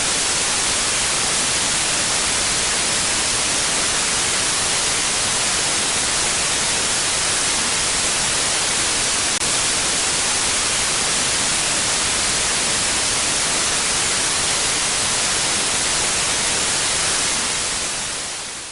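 Static white noise: a steady, even hiss, brightest in the high range, fading out near the end.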